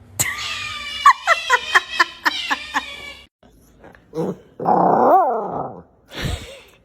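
A dog vocalizing: a quick run of short, high yips at about four a second, then a longer, rough growling call that rises and falls in pitch, and a last short burst near the end.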